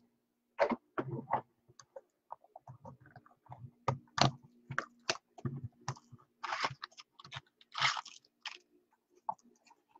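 Hands opening a Topps Museum Collection trading-card box: irregular crinkling and crackling of wrapper and cardboard, with scattered taps and knocks as the mini boxes are handled and the box is emptied.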